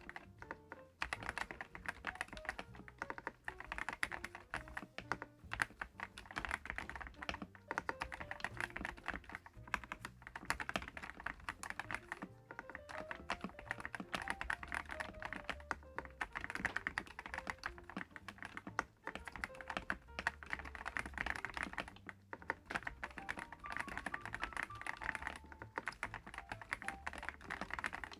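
Fast, continuous typing on a DAREU EK75PRO mechanical keyboard, a gasket-mounted board with DREAM HIFI linear switches: a dense run of clicky key strokes and bottom-outs with no pauses. Faint background music sits under the typing.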